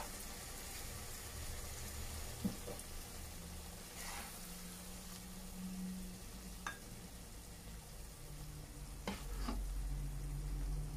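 A spatula scooping thick prawn curry out of a nonstick pot into a glass bowl: soft scraping and stirring in the thick curry, with a few light clicks and taps, two of them close together near the end, over a faint sizzle from the hot curry.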